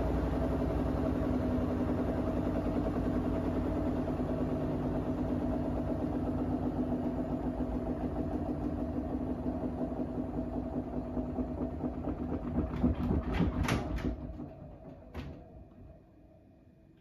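Bosch EcoSilence Drive washing machine spinning an unbalanced load: a steady brushless-motor hum and drum rumble that slowly fades. Near the end there is a quick cluster of knocks, and then the drum stops with a single click.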